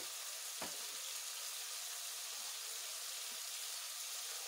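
Steady sizzling of sliced ridge gourd and potato frying in oil in an open aluminium pressure cooker, with one brief knock near the start.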